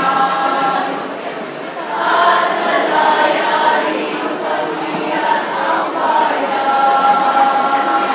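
A choir of young voices singing together in long held notes, in phrases a couple of seconds long with short breaks between them.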